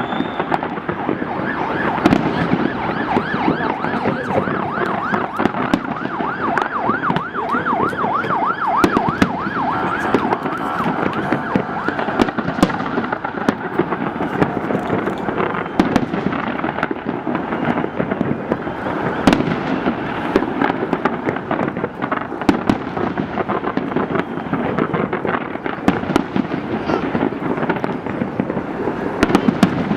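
New Year fireworks display going off continuously: a dense, irregular run of bangs and crackles. From about five to eleven seconds in, a rapid warbling tone rises and falls several times a second over the bangs.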